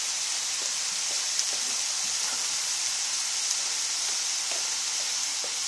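Chicken pieces in red curry paste sizzling steadily in a hot wok.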